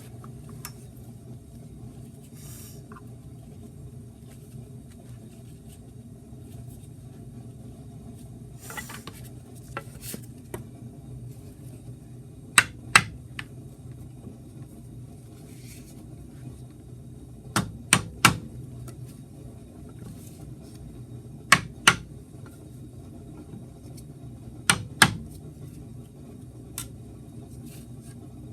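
Hammer striking a block of wood held against a wheel hub's metal dust cap, tapping the cap into place: sharp knocks in twos and threes, about nine in all, with pauses of a few seconds between groups, over a steady low hum.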